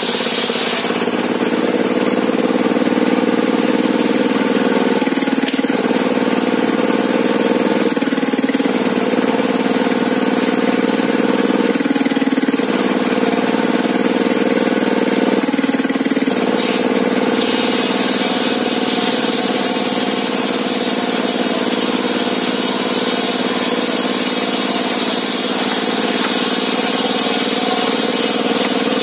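The engine driving a sawmill table saw runs steadily, its note shifting briefly every few seconds.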